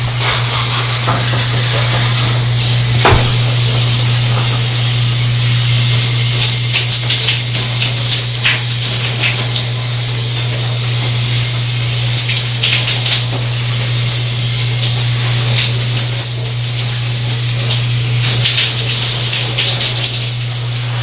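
Handheld shower head spraying water onto hair and into a bathtub as bleach is rinsed out, a steady hiss with irregular splashes and a steady low hum beneath.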